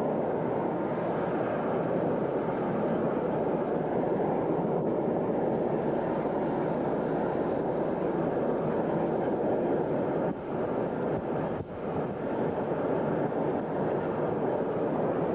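Steady rushing noise on an old camcorder's microphone, briefly dipping twice about ten and twelve seconds in.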